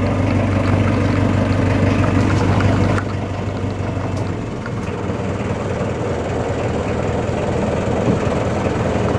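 Small fishing boat's engine running, a steady low hum under a wash of noise. About three seconds in the sound changes abruptly and the deepest part of the hum fades.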